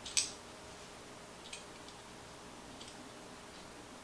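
Small hard clicks of metal RC-truck steering knuckle and C-knuckle parts being handled and fitted together: one sharp click just after the start, then a few faint ones.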